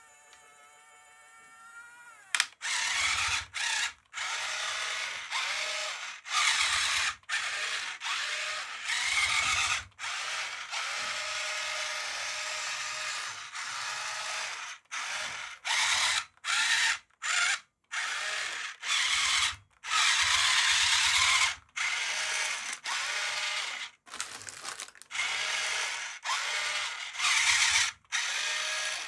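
A small electric toy motor whirring in repeated bursts of half a second to two seconds, with short breaks between them. It is preceded by about two seconds of a wavering electronic tone.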